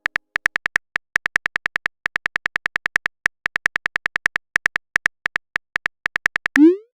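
Animated phone keyboard typing sound effect: runs of quick, short clicks, about six to eight a second with brief pauses between runs. Near the end comes a short rising tone, a message-sent sound.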